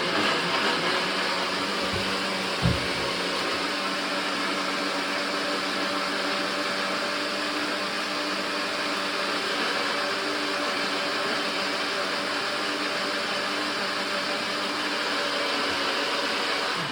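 Countertop blender running steadily at full speed, blending fruit and almond milk into a smoothie, with one short knock between two and three seconds in. The motor stops at the very end.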